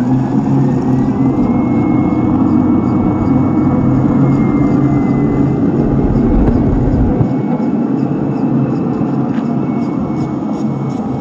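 A 1/10-scale RC tank running: a steady engine-like drone with a thin whine that rises about a second in and then holds. The deepest rumble drops away about seven seconds in.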